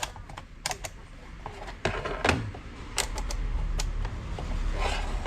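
A series of sharp clicks and knocks from small hard objects being handled. A low steady hum comes up about three seconds in.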